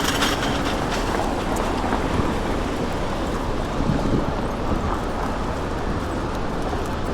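Steady Manhattan street noise, mostly the rumble of passing traffic.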